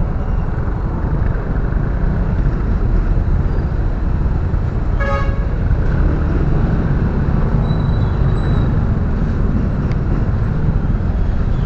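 Steady low rumble of a motorcycle riding in slow, dense road traffic, with one short vehicle horn toot about five seconds in.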